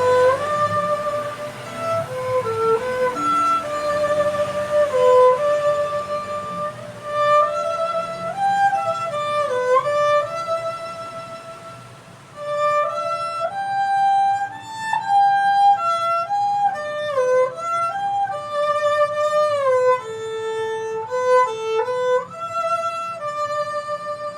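A bowed string instrument playing a slow, meditative solo melody of long held notes that move stepwise, with occasional sliding between pitches. The line eases off briefly about halfway through, then continues.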